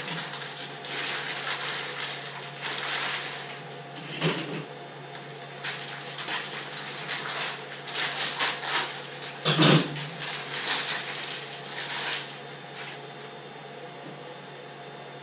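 Crinkly rustling of packaging being handled in repeated bursts, with two dull knocks, about four and ten seconds in, the second the loudest; the handling dies away near the end.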